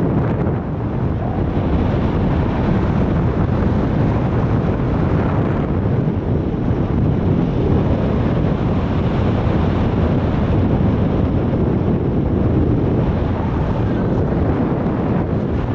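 Airflow rushing over the microphone of a camera on a paraglider in flight: steady, deep wind noise with no tones or breaks.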